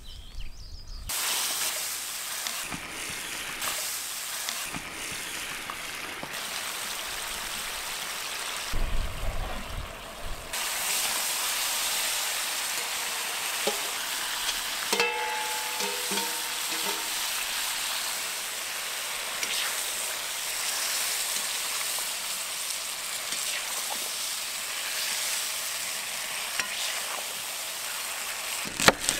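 Meat and vegetables sizzling in a cast-iron cauldron of sauce over a fire, with a metal ladle stirring, and a brief metallic scraping about halfway through as meat is scraped in from a steel pot.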